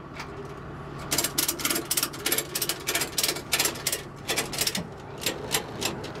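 Ratchet on a flatbed tow truck's wheel tie-down strap being cranked tight over a pickup tire: quick pawl clicks, about four a second, with a short pause between strokes.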